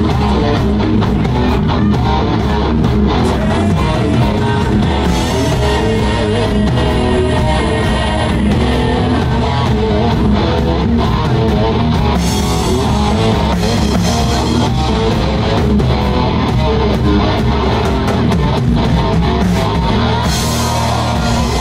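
Live rock band playing at full volume: electric guitar, bass guitar and drum kit.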